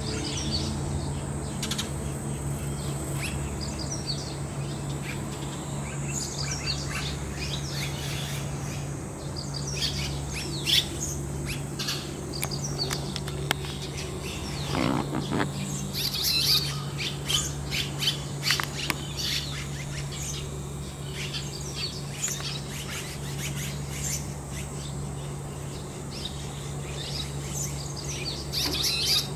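Red-rumped swallows calling, short high chirps and twitters in scattered bursts. Under them runs a steady low hum and a thin, steady high-pitched whine.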